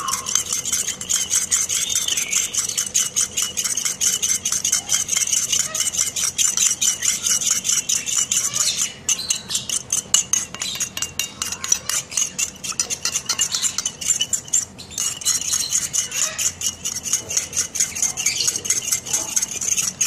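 A metal spoon briskly stirring thin baby-bird hand-feeding formula in a small stainless steel bowl, clinking against the bowl several times a second in a steady rhythm.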